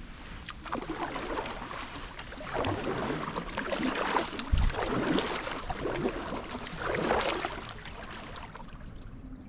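Kayak paddle strokes swishing and splashing through the water, one every second or so, with a single low bump about four and a half seconds in.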